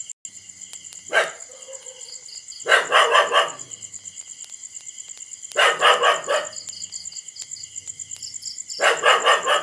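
A dog barking: a single sharp bark about a second in, then three runs of quick barks about three seconds apart. Crickets chirp steadily underneath.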